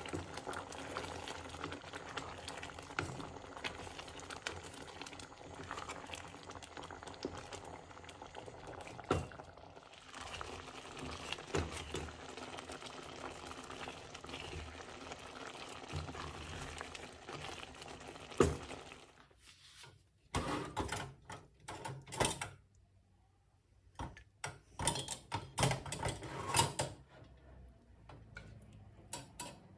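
A pot of pasta soup boiling and bubbling steadily while a wooden spoon stirs it, with a few sharp knocks of the spoon against the pot. About two-thirds through the bubbling drops away and short knocks and clatters follow as the soup is ladled onto a plate.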